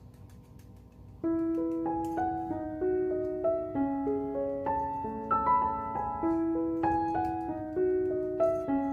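Background piano music: a slow melody of single notes that starts suddenly about a second in, over faint room noise.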